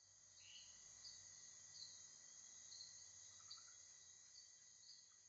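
Faint chorus of night insects: a steady high-pitched trill, with short chirps repeating about once a second.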